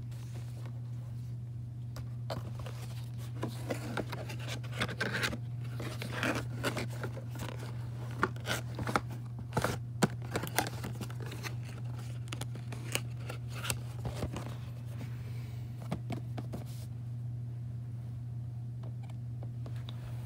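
A cardboard model box being handled: scraping, rustling and sharp taps of the card come in a busy stretch through the middle and stop near the end. A steady low hum runs underneath.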